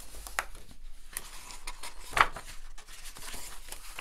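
Pages of a hardcover picture book being turned by hand: paper rustling and sliding, with one brief, louder flap of the page about two seconds in.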